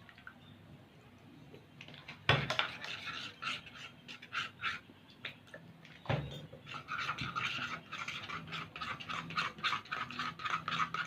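Borax-activated PVA glue slime being worked: quick, irregular sticky clicks and squelches, with a heavier thump about two seconds in and another about six seconds in.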